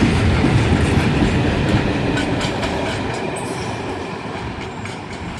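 A train running through the station at speed, its wheels rumbling and clattering on the rails. The sound fades steadily as the train moves away.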